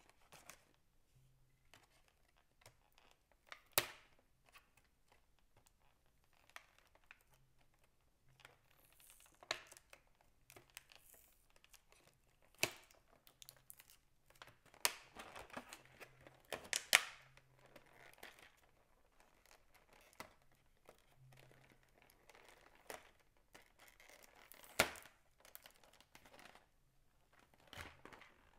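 Clear plastic blister packaging being handled and pulled apart: crinkling and crackling with scattered sharp clicks and snaps, busiest a little past halfway.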